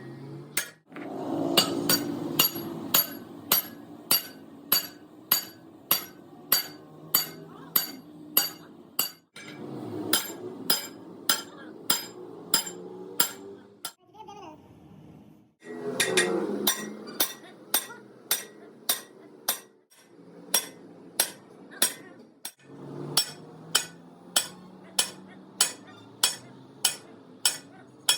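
Steady hammer blows on steel, about two strikes a second, each with a bright metallic ring; the run of blows stops and restarts abruptly several times.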